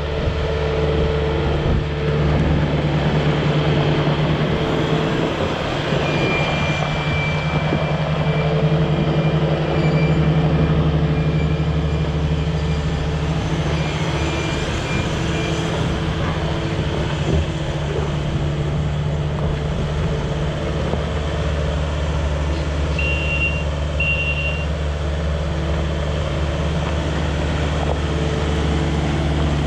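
Kubota SSV75 skid steer's four-cylinder turbo diesel engine running steadily. A few faint high tones come and go, including two short beeps a little after the middle.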